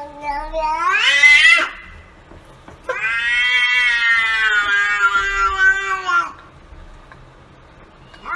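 Domestic cat meowing: two long, drawn-out meows. The first rises in pitch and ends about a second and a half in; the second is steadier and about three seconds long.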